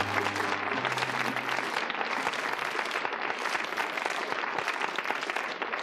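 Audience applauding steadily, with the last low notes of a musical interlude dying away in the first second and a half.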